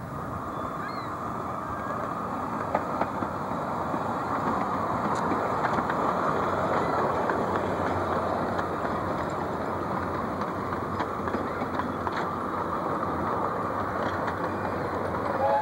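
Open cars of a small-gauge steam train rolling past close by on narrow track: a steady rumble and rattle, with scattered clicks from the wheels on the rails. It grows louder over the first few seconds as the cars come alongside.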